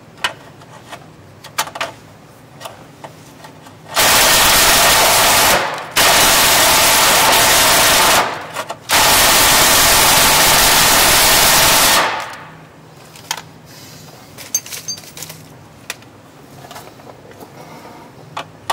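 Cordless impact driver hammering in three long bursts: about two seconds, then two more, then three after a short pause. Small clicks and taps of handling come before and after.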